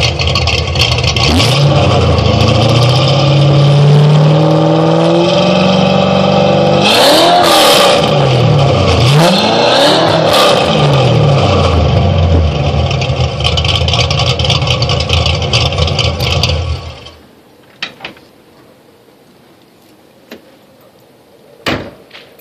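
Car engine running through an SLP LM1 exhaust with an off-road X-pipe and Hooker equal-length headers: it revs up gradually over the first few seconds, then gives several quick throttle blips, settles to steady running and stops abruptly about 17 seconds in. A few faint clicks follow.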